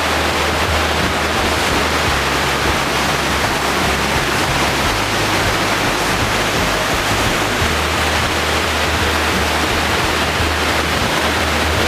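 Waterfall pouring, a loud steady rush of falling water.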